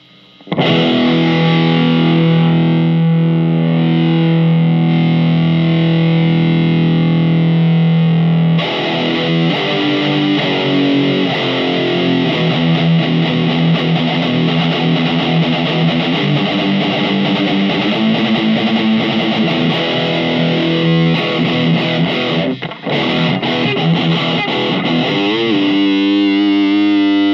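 Distorted electric guitar played through a Marshall MG15MS II micro stack on its overdrive channel, with a Celestion VT Junkie speaker fitted. A chord rings for about eight seconds, then busier riffing follows, ending on a held note.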